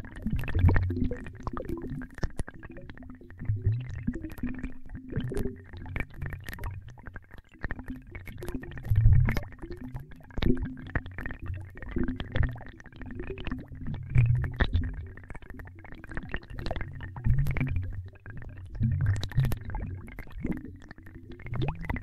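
Synthetic water-bubbling sound effect: deep gurgling bubbles that swell every second or two, scattered with quick pops, over a faint steady tone.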